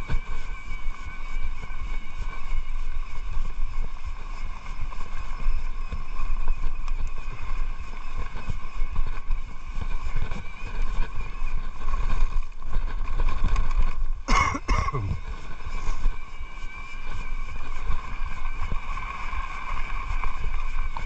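Mountain bike descending a dirt forest trail: constant tyre and trail rumble with wind on the microphone, over a steady high-pitched whine. About fourteen seconds in, a short sharp sound with a quick falling sweep cuts across it.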